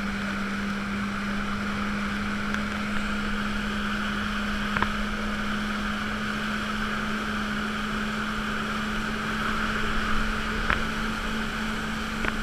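Jet ski (personal watercraft) engine running at a steady cruising speed, a constant drone with water rushing past the hull.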